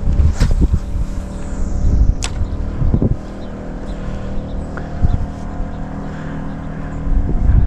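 An engine running steadily, over a low rumble, with a couple of sharp knocks in the first few seconds.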